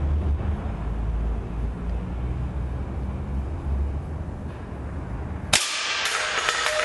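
A steady low hum, then about five and a half seconds in a single sharp crack: a Mendoza Xtreme air rifle firing a 5.5 mm pellet through a row of aluminium beer and soda cans. Rattling and clatter follow as the hit cans are knocked over.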